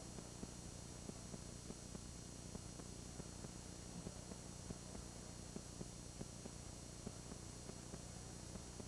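Camcorder recording noise: a steady low hum and hiss with a faint high whine, and faint, irregular little ticks scattered throughout.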